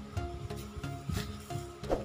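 Background music: a melody of short notes stepping from pitch to pitch over low bass notes.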